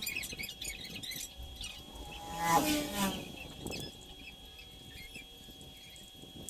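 A short animal call about two and a half seconds in, over a faint steady high-pitched hum.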